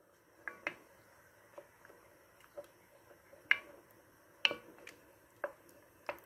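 Spoon stirring thick cream sauce in a cooking pot (cocotte), with scattered light clicks and taps of the spoon against the pot at irregular intervals, the loudest about three and a half and four and a half seconds in.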